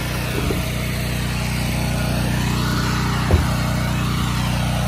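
Gas engine of a 4 GPM pressure washer running steadily, with a single short knock a little over three seconds in.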